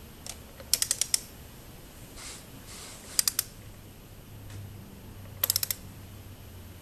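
Ratchet head of a click-type torque wrench on a 17 mm socket, snugging down an oil filter: short runs of three to five quick pawl clicks, three times, as the handle is swung back between pulls. The wrench has not yet reached its low 8 ft-lb setting.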